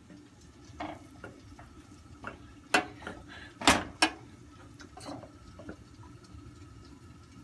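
Metal potato masher mashing drained boiled potatoes in a steel pot: scattered clinks and clanks of metal on metal, loudest in a cluster of three about three to four seconds in.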